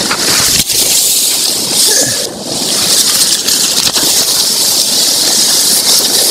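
A mountain creek rushing in a steady loud hiss. Nylon tarp fabric rustles now and then as it is pulled back over a hammock.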